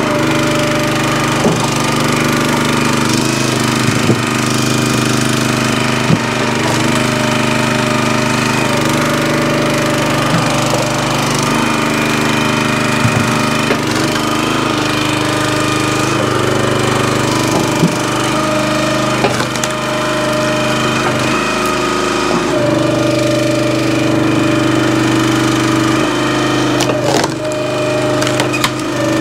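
Gas log splitter's small Briggs & Stratton engine running steadily, its note shifting a few times as the hydraulic ram works, with occasional sharp cracks of wood splitting.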